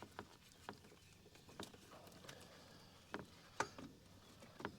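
Faint, irregular clicks and light knocks, about seven spread over the few seconds, from tools and parts being handled while working on a scooter engine.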